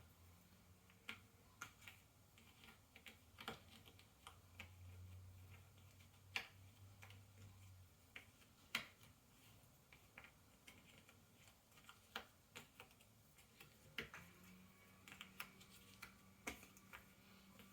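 Cardboard jigsaw puzzle pieces being picked up, tapped and pressed into place on a table: light irregular clicks and taps, a few sharper ones.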